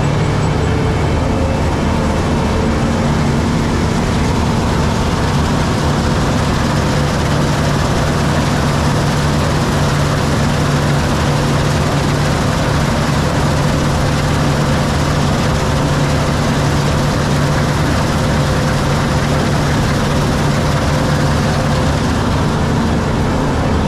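New Holland CX8070 combine harvester running steadily while threshing barley: a constant low diesel engine hum under an even mechanical rush from the threshing and separating works, with no change in speed.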